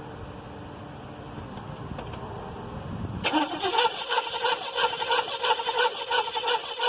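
The engine of a 1979 Chevy Caprice cranking on its starter, which kicks in about three seconds in with a short rising whine. It settles into an even rhythmic chatter of about four to five beats a second and does not catch: a crank-no-start. Before the starter engages there is only a low, steady rumble.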